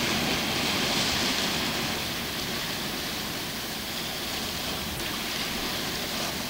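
Ocean surf: a steady rushing wash of waves that slowly fades.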